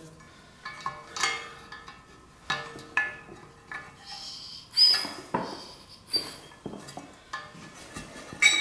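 Steel open-end wrench clinking against an air spring's brass air fitting and steel mounting bracket as the fitting is worked on: irregular metallic clicks and clinks, a ringing clink about five seconds in the loudest.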